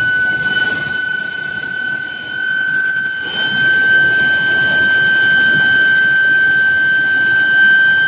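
IGBT induction billet heater's coils whining in operation: a loud, steady high-pitched tone with fainter higher tones above it, its pitch creeping slowly upward. Beneath it runs a broad rumble of the roller conveyor and plant, which grows louder about three seconds in.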